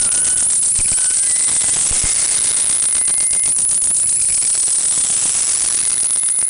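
Harsh experimental noise music from violin and electronics: a loud, dense wall of hiss pulsing rapidly and evenly. A faint thin high tone is held for a couple of seconds in the middle.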